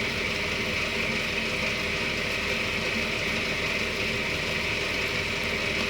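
Cotton candy machine running steadily, its spinning head making an even mechanical hum.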